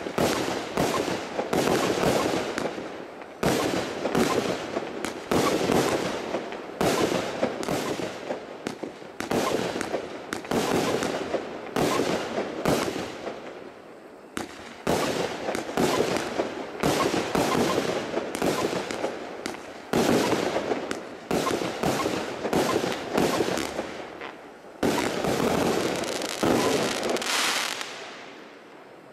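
Zena Kracherblitz fireworks cake firing shot after shot, each shot a sharp report followed by a dense spray of crackling stars, about one shot a second with a short lull about halfway. The crackling dies away near the end as the cake finishes.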